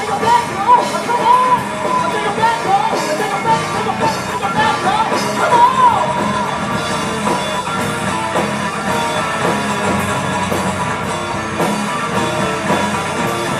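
A live rock band playing loudly through a hall's PA, with a high, bending melodic line over the band for the first half; after that the band plays on more steadily.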